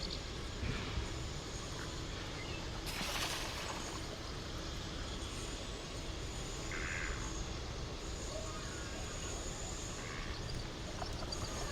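Outdoor ambience: a steady low rumble with a brief hissing rush about three seconds in and another at the end.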